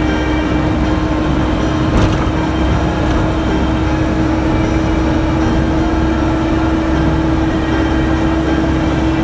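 Caterpillar 420D backhoe loader's diesel engine running steadily, with a constant hum held at one pitch over the engine noise. A single sharp knock about two seconds in.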